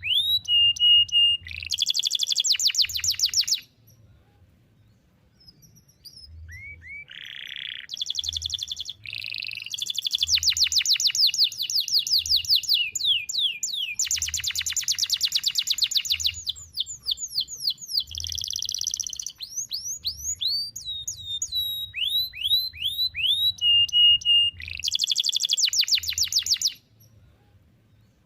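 Domestic canary singing in long phrases: fast trills of sharp repeated notes, quick downward-sweeping chirps and a short held whistle. There is a brief pause about four seconds in, and the song stops shortly before the end.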